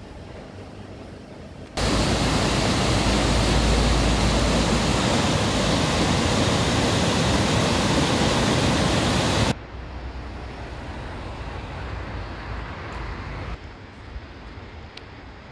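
Rushing white water of a river tumbling over rapids: a loud, steady rush that cuts in about two seconds in and cuts off suddenly well before the end, leaving a much quieter outdoor background.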